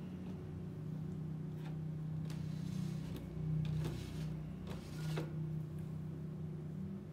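A steady low hum, with a few short knocks and scrapes from about a second in, the loudest two around the middle.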